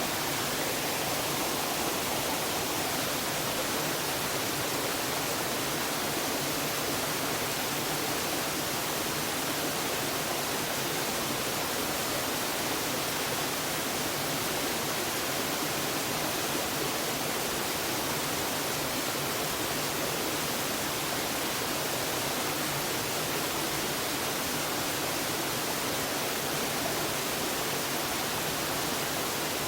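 Waterfall running steadily: an even, unbroken rush of falling water.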